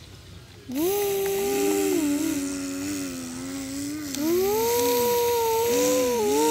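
A child's voice imitating a truck engine: a hummed drone that starts about half a second in, holds and bends up and down in pitch, dips about four seconds in, then wavers quickly near the end.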